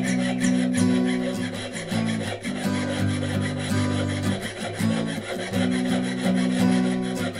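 Jeweller's piercing saw cutting through a thin metal plate held on a wooden bench pin, with rapid, even strokes of about five a second. Background music with low held notes plays under it.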